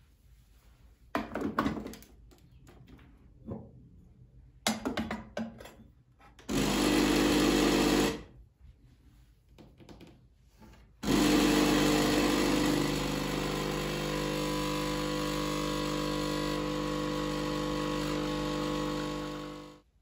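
A few clicks and knocks as a cup is set in place, then a pump espresso machine's pump runs briefly about six seconds in, stops, and starts again about eleven seconds in, running steadily with a constant buzzing hum for some nine seconds while pulling a shot into the cup, cutting off just before the end.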